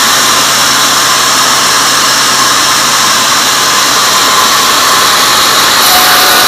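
Band sawmill running and cutting through a teak log as the carriage feeds it past the blade: a loud, steady machine noise with no let-up.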